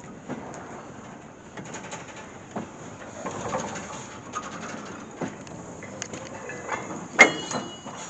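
Old four-wheeled tank wagons rolling slowly past during shunting, wheels clicking over the rail joints and running gear knocking. About seven seconds in there is one loud metallic clank with a short ringing squeal.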